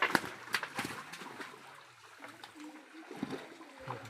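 Water splashing in shallow water: several sharp splashes in the first second and a half, then lighter sloshing and trickling.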